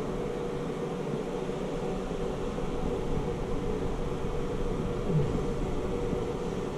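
Steady mechanical hum with a constant tone, like room machinery running.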